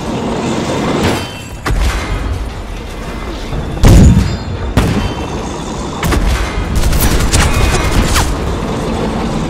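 Dubbed battle sound effects: tank cannon shots and shell explosions over a steady low rumble. The shots come every second or so, with the loudest boom about four seconds in and a quick cluster of shots near the end.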